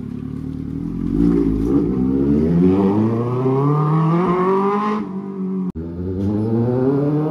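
Kawasaki ZX-6R inline-four on an aftermarket Arrow decat pipe with the dB killer removed, accelerating away. The pitch climbs steadily, drops about five seconds in, then climbs again.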